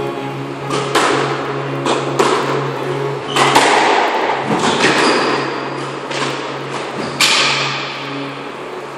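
Squash rally: the ball is struck by rackets and smacks off the court walls in a string of sharp, echoing knocks, about a dozen, at an uneven pace, the last about seven seconds in. A steady low hum runs underneath.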